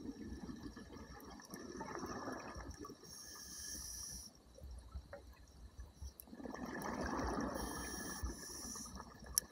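Scuba regulator breathing underwater, sped up to double speed: hissing inhalations alternating with bubbly rushes of exhaled air. A single sharp click sounds near the end.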